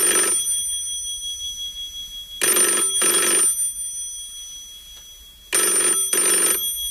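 A telephone bell ringing unanswered in the British double-ring pattern: two short rings together, repeating about every three seconds, each fading away before the next.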